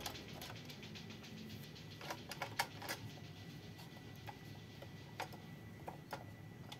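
Hard plastic clicks and knocks as a plastic Thomas & Friends toy train is picked up and handled. A quick run of faint ticks comes in the first second or so, then a cluster of louder clicks about two to three seconds in, then a few single clicks.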